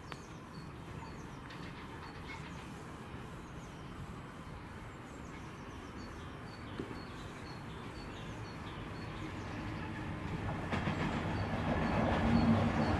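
A diesel train approaching, its low rumble growing steadily louder over the last several seconds.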